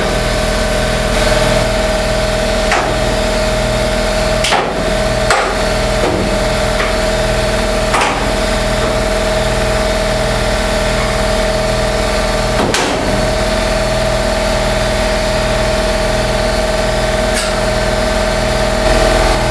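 A steady machine drone runs throughout, with a few scattered sharp knocks, like metal being struck, during quarter-panel removal.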